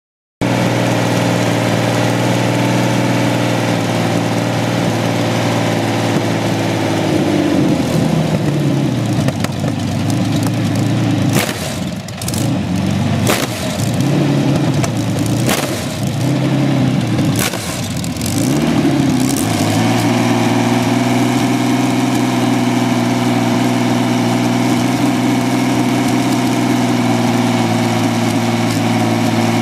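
Rolls-Royce Meteor 27-litre V12 petrol engine running on an open test stand. It runs steadily at first, then from about seven seconds its speed drops and swings up and down several times as the throttle is worked, with a few sharp cracks. From about twenty seconds it settles back to a steady run.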